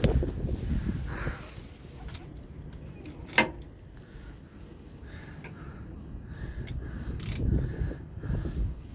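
Hand tools on metal during removal of the camshaft dephasers, one sharp metallic click about three and a half seconds in and a short high clink a few seconds later, over low handling noise.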